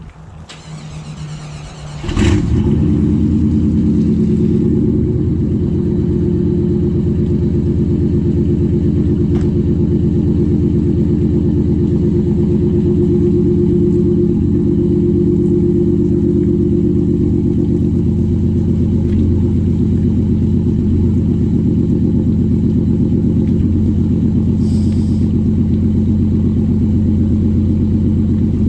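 Chevrolet K1500 pickup's 350 small-block V8, exhausting through a Flowmaster Super 10 muffler with no catalytic converters, is cold-started. It cranks for about two seconds, catches suddenly and loudly, then settles into a steady idle.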